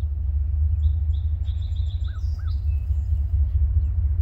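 Low rumble of a distant approaching freight train's diesel locomotives, growing gradually louder. Small birds chirp over it, a quick run of short notes starting about a second in.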